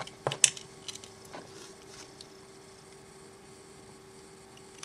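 A few sharp clicks and light taps of small tools and wires being handled on a model locomotive's circuit board, two of them close together near the start, over a faint steady hum.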